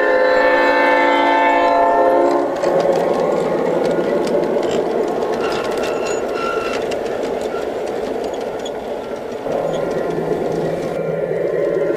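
A G scale model diesel locomotive's sound unit sounding its horn, a chord of several notes that stops about two and a half seconds in. Then the train rolls past with a steady rumble and light clicking from the wheels on the track.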